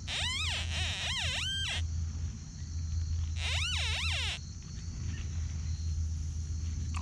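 XP Deus metal detector sounding its target tone as soil from the hole is passed over the search coil: a warbling tone that sweeps up and down in three quick arcs, then two more a few seconds later. Under it a steady high insect buzz.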